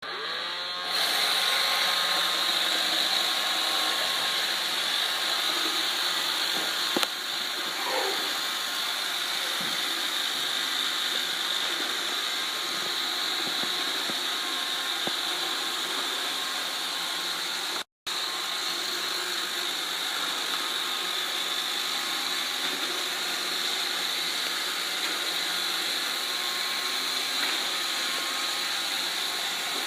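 iRobot Roomba 530 robot vacuum running, a steady whirring hum with a hiss of suction. It comes up to full level about a second in, with a single knock about seven seconds in.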